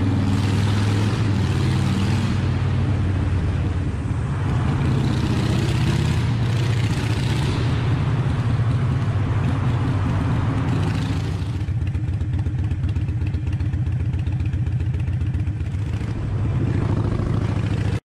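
Motorcycle engine running at road speed, heard from the bike itself with wind rushing over the microphone. The wind noise eases about two-thirds of the way through as the engine note carries on, and the sound cuts off abruptly at the end.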